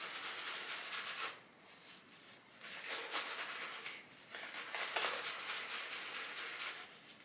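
Synthetic shaving brush swirling shaving cream into a lather: a wet, hissy swishing in three spells of one to two seconds, with short pauses between.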